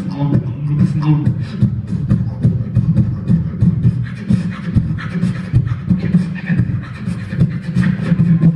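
Live beatboxing into a handheld microphone: a rapid run of mouth-made kicks, clicks and snares over a continuous low pitched tone, without a break.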